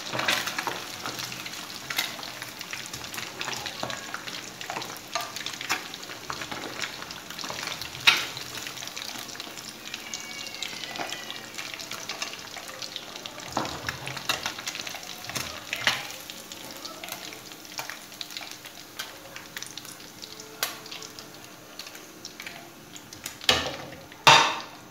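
Marinated fish pieces frying in hot oil in a karahi, a steady sizzle with scattered crackles, as a wire mesh skimmer lifts pieces out. A few sharper clinks from the skimmer in the pan, the loudest near the end.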